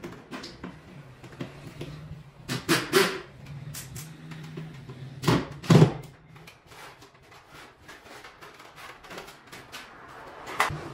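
Cordless drill run in two short bursts against the wall, each about half a second, the second the loudest, over a steady low hum. A smaller clatter comes near the end.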